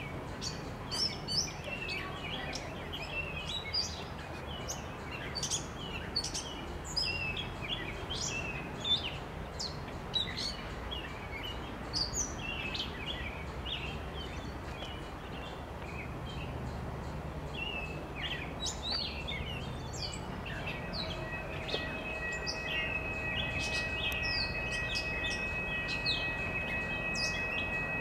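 Songbirds chirping over a low rumble of an approaching diesel commuter train. About three-quarters of the way through, the distant train's horn comes in as a steady chord of several notes and holds.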